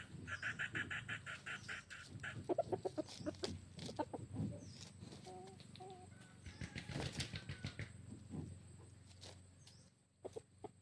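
Rooster giving a few short, soft clucks while rustling and scratching through dry leaves. A rapid pulsing trill, about seven or eight pulses a second, runs through the first two seconds.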